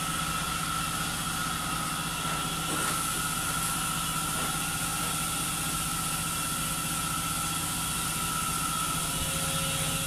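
Steady drone of a tuna longline fishing vessel's engine and machinery, with a constant low hum and a steady high whine over it.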